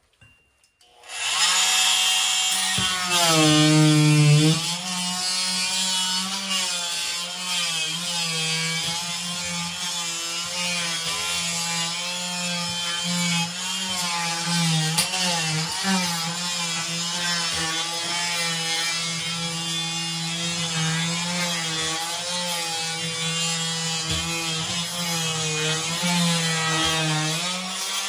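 Corded oscillating multi-tool with a scraper blade running, starting about a second in, as the blade is plunged between peel-and-stick vinyl floor tiles and worked under them to lift them. A steady buzz whose pitch wavers a little as the blade meets the tile and adhesive.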